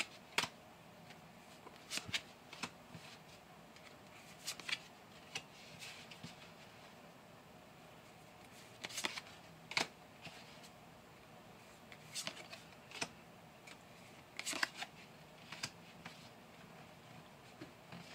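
Japanese Pokémon trading cards being handled one at a time from a booster pack. Quiet, uneven card snaps and slides come every second or so over faint room hiss.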